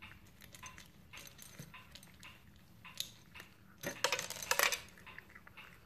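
A cat crunching dry kibble: scattered small crunches and clicks, with a louder run of crunching about four seconds in.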